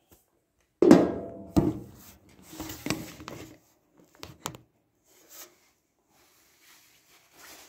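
Household objects being handled: a loud bang with a short ringing tail about a second in, a second knock right after, then a spell of rattling and two sharp clicks before it goes quiet.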